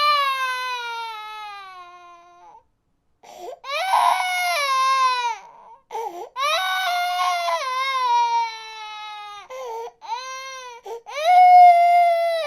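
Infant crying: a run of long, loud wails, each falling in pitch as it ends, broken by short gasps for breath, the longest pause about three seconds in.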